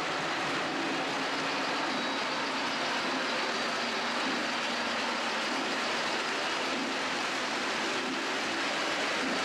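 O gauge model steam train running on the layout's track: a steady, unbroken running noise.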